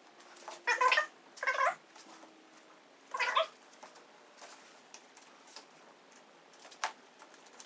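A cat meowing: three short calls, the first two close together about a second in, the third a little after three seconds, followed by a few faint clicks and a sharp tick.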